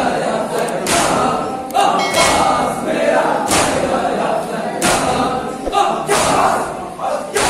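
A crowd of men chanting a noha in unison while striking their chests together in matam, a loud slap from the whole group roughly every second and a bit over the chanting voices.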